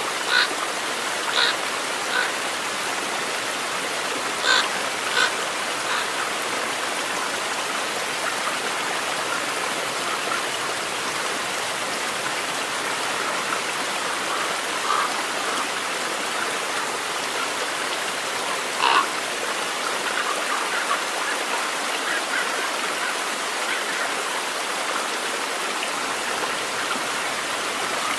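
Stream water running steadily over stones in the shallows. A few brief, sharp louder sounds stand out, mostly in the first several seconds and again about 19 seconds in.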